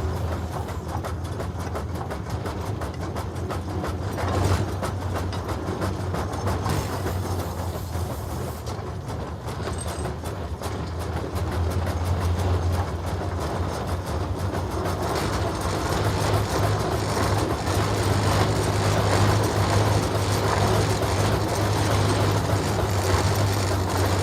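Case 150 hp steam traction engine under way: a steady low drone with a fast, even mechanical clatter, growing somewhat louder in the second half.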